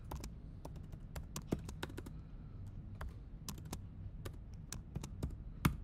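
Typing on a computer keyboard: irregular key clicks, several a second, over a low steady hum.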